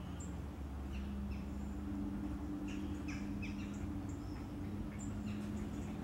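Small birds chirping from a recording played through a tablet's speaker: short, high, falling chirps in clusters about a second in, around the middle, and again near the end, over a steady low hum.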